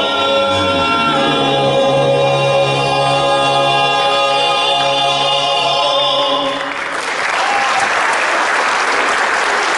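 Male gospel quartet holding the final chord of a song together, the voices cutting off about six and a half seconds in. Audience applause follows straight after and continues.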